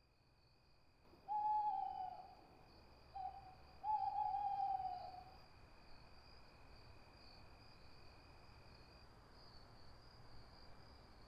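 An owl hooting three times, a long hoot, a short one and another long one, each slightly falling in pitch. Behind it is faint night-forest ambience with a steady high-pitched drone.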